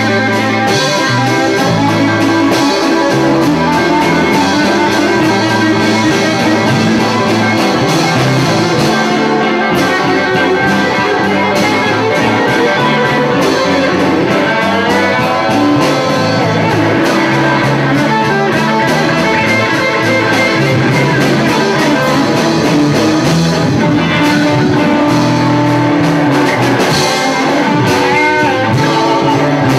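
Live blues band playing an instrumental passage led by electric guitar, with bass and drums underneath; the guitar bends notes about halfway through and again near the end.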